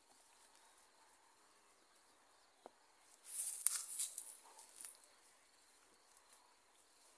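Tall grass rustling briefly about three seconds in, with a few small clicks, as a German Shepherd puppy pushes through it; otherwise a faint background.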